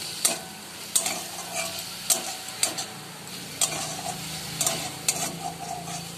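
Metal spatula stirring minced chicken in a kadai, with irregular scrapes against the pan every half second to a second, over the steady sizzle of the meat frying in oil.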